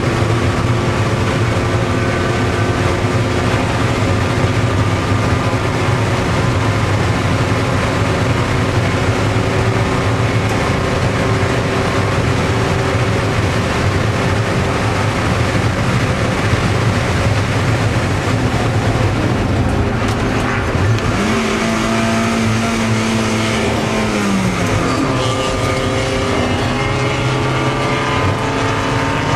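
Car engine at high revs heard from inside the cabin while lapping a racetrack, with steady wind and road noise. About twenty seconds in the pitch drops as the driver lifts and slows, and near the end the revs climb again under acceleration.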